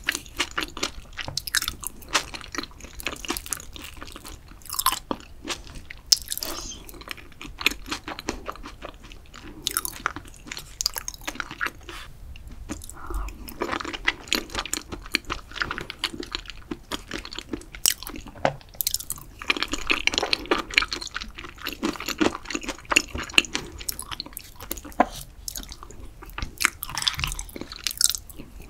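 Close-miked ASMR eating sounds: crunchy chewing with many sharp crackles and clicks, and another bite near the end.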